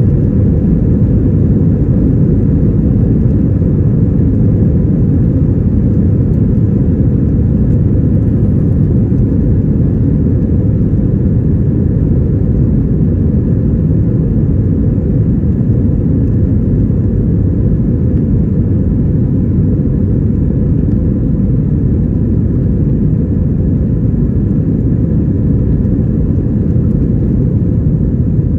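Airbus A321-232 cabin noise heard inside the passenger cabin: its IAE V2500 turbofan engines and airflow make a loud, steady, deep rumble with a faint thin hum above it.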